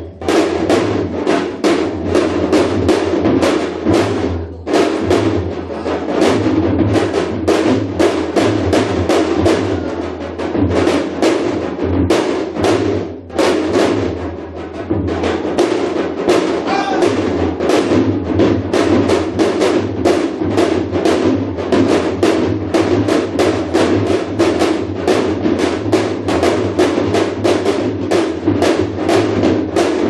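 Korean shamanic janggu (hourglass drum) played in fast, dense strokes, several to the second, with short breaks about four and a half and thirteen seconds in.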